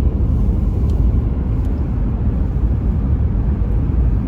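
Steady low rumble of a car driving on a winter road, engine and tyre noise, with two faint ticks about a second in and just after.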